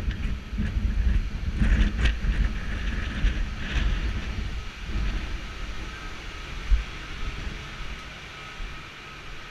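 Wind buffeting the microphone over a steady machinery drone with a faint high whine, on an offshore oil platform. The buffeting dies down about halfway through, leaving the steadier machinery hum, and a single thump comes about two-thirds of the way in.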